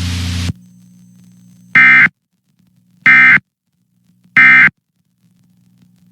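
Hiss of static cuts off about half a second in, then three short, identical bursts of EAS end-of-message data tones, each about a third of a second and about 1.3 s apart. These are the end-of-message tones that close an Emergency Alert System Required Monthly Test.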